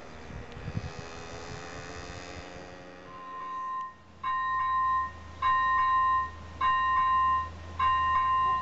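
A fading rumble with faint sliding tones. Then, from about four seconds in, a railway level-crossing warning signal sounds a repeated electronic two-stroke chime, about one ring a second with short gaps, over a steady low hum.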